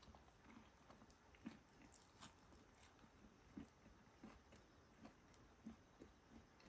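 Faint chewing of a bite of bolete mushroom tempura: soft, irregular crunches, the firm, dense flesh giving a gristly 'gorigori' bite.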